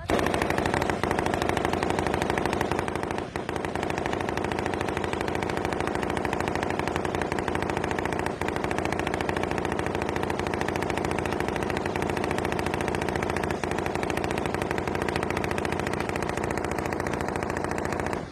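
Heavy automatic gunfire from many weapons firing at once. The shots come so fast and overlap so much that they form a dense, unbroken rattle with no pause.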